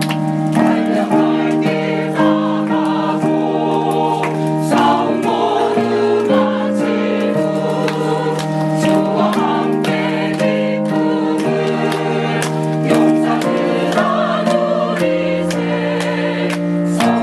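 Church choir singing a hymn in full harmony, with the chords held over a steady beat of about two a second.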